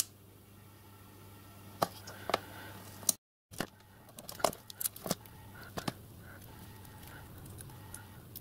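Small brass plate pieces being handled on a workbench: scattered light clicks and taps, more of them in the second half, over a steady low hum.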